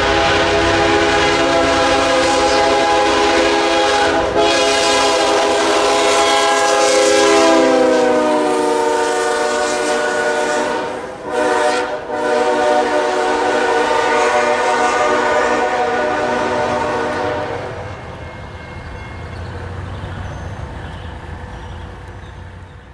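Locomotive multi-chime air horn sounding the grade-crossing signal, long, long, short, long, as a chord of several notes whose pitch slides down once about eight seconds in. After the last long blast it stops, leaving a quieter low train rumble that fades out.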